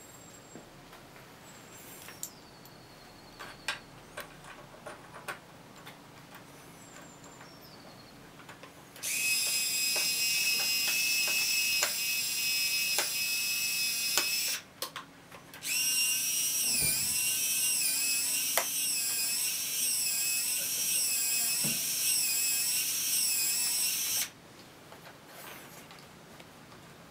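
Electric servo of a jet car's release mechanism whining in two long stretches with a short break between them; in the second stretch the pitch wavers up and down. Faint clicks and handling sounds before and after.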